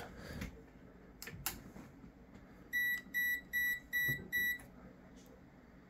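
Digital bench DC power supply beeping five times in quick succession, evenly spaced short high beeps, as its front-panel controls are pressed to switch it off. Two soft clicks come just before, about a second in.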